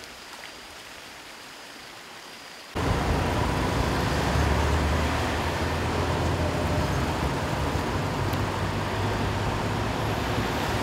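Quiet background that cuts abruptly, about three seconds in, to loud, steady motor-vehicle running and road noise with a low rumble.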